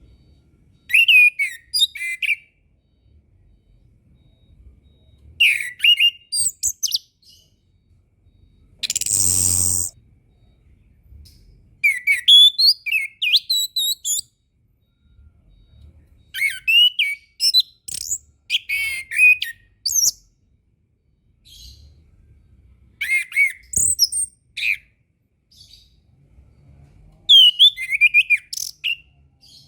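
Chestnut-capped thrush (anis kembang) singing: short phrases of fast, varied whistles and twittering notes, about seven phrases spaced a few seconds apart. About nine seconds in, a harsh buzzing burst lasts about a second.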